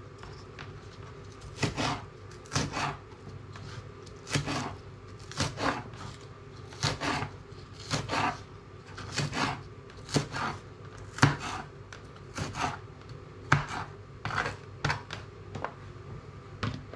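Large chef's knife chopping onion and spring onion on a plastic chopping board: separate knife strikes against the board every second or so, often in quick pairs.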